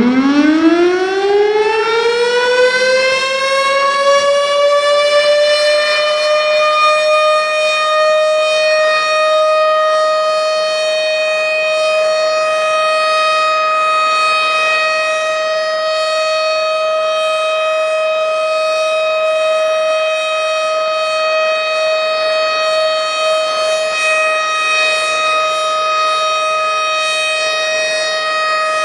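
Tornado warning siren winding up, its pitch rising over the first few seconds, then holding one steady, loud wail.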